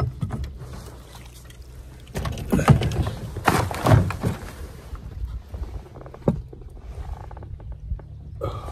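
Knocks, scuffs and splashy handling noise of a freshly caught walleye being handled in a canoe. The noise is busiest from about two to four and a half seconds in, with single knocks later, over a steady low hum.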